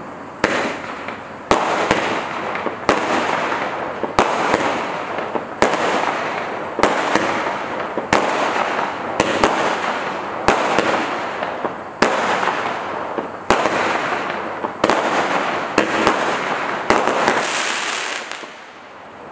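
Standard Fireworks 'Space Fight' 12-shot barrage cake firing. A sharp bang comes about every second and a half, and each one trails off into a hissing crackle of glittering breaks. A quick cluster of shots near the end fades out.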